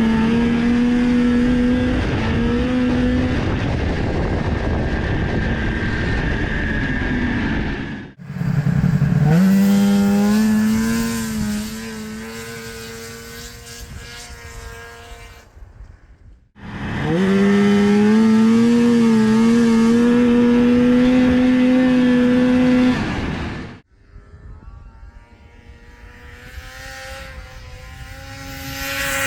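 Modified 1981 Ski-Doo Blizzard snowmobile with a swapped-in Rotax 583 two-stroke engine running hard at high revs across several short clips. Each time it winds up and holds a high, steady pitch, and the sound cuts off abruptly between clips. In the last few seconds it is quieter, climbing in pitch and growing louder as it comes closer.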